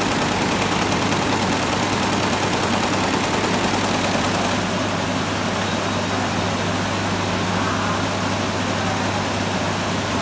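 Computerized embroidery machine running and stitching, a steady mechanical noise over a constant low hum.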